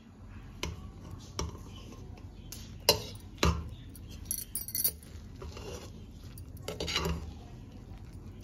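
Metal spoon clinking and scraping against the inside of a pressure cooker while fluffing cooked rice pulao. There are several separate knocks, the loudest about three seconds in, and a longer scraping stir near the end.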